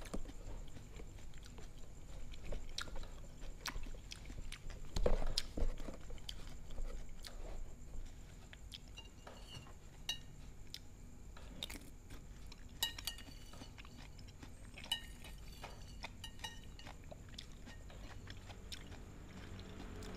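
Metal spoon clinking and scraping on a china plate as it cuts boiled cucumber slices, with close-up chewing. There is a louder thump about five seconds in.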